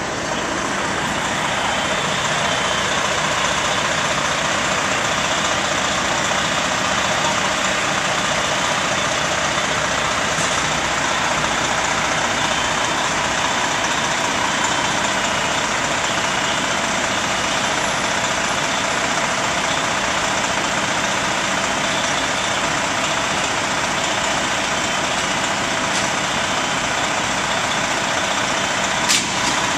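Fire truck engine running steadily, a constant loud drone, with one short sharp click near the end.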